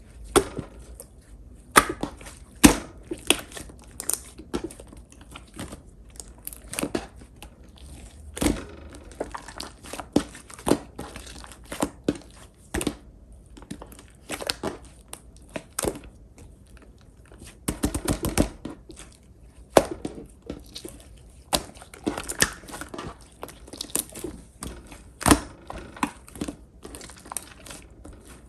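Clear pink slime being squished and stretched by hand, giving irregular sharp clicks and pops with soft crinkly noise between them.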